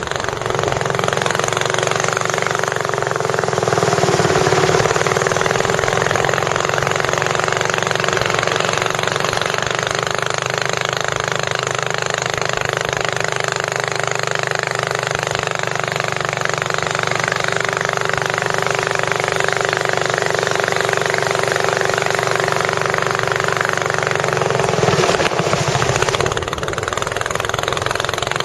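A boat's engine running steadily with a loud rattling drone, swelling briefly about four seconds in and again near the end.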